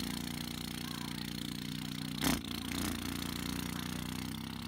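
A steady, low mechanical hum, like a small motor running, with one short knock a little over two seconds in.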